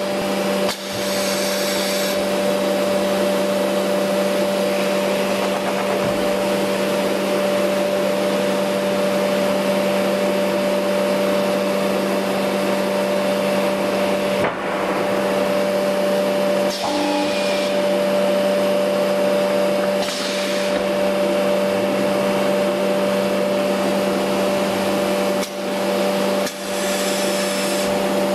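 A CNC router with an automatic suction-cup sheet loader running: a steady machine drone with a constant hum. A few short hisses of air break through it.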